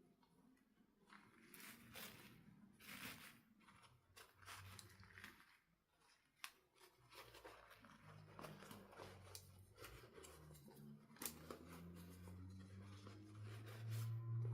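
Faint, irregular crinkling, scratching and tearing of packaging being handled at close range, with a low steady hum coming in about halfway and getting louder near the end.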